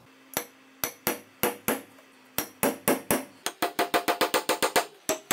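Steel framing hammer tapping a trigger guard roll pin into an aluminium AR-15 lower receiver. The taps are spaced out at first, then come quicker, about four or five a second, from about three and a half seconds in.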